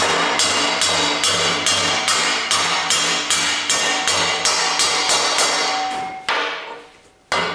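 Hammer tapping on a steel driveshaft U-joint yoke to drive out the bearing caps: a steady run of ringing metallic taps, two or three a second, which stops about six seconds in, with one more tap at the very end.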